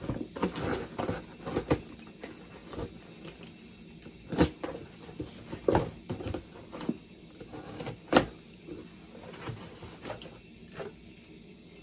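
Cardboard shipping box being opened by hand: irregular clicks, knocks and rustles of cardboard and packaging, with a few sharper knocks about four, six and eight seconds in.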